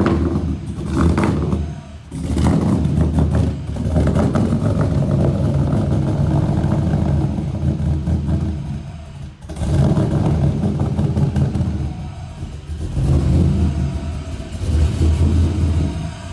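Pickup truck engine running and revving, heard loud at its exhaust.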